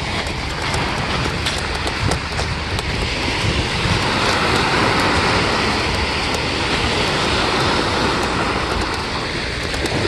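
Small waves washing onto a sandy shore: a steady hiss of surf over a low rumble, swelling a little in the middle.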